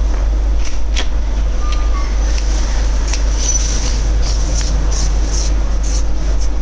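Small clicks and ticks from a metal headlamp flashlight being handled, its tail cap threaded and its switch pressed, over a steady low hum.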